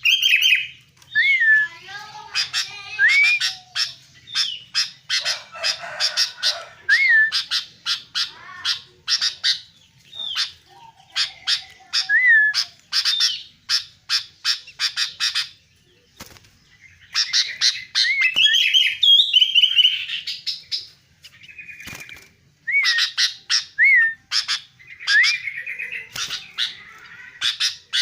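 Albino sooty-headed bulbul (kutilang) calling and singing: quick runs of sharp chirps mixed with short whistled notes that rise and fall, broken by a couple of brief pauses.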